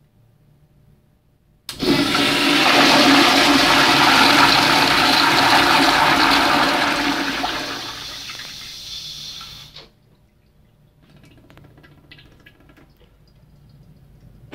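Crane blowout toilet flushing on its pressurised flush valve: a sudden loud rush of water about two seconds in that holds, tapers off, then cuts off abruptly.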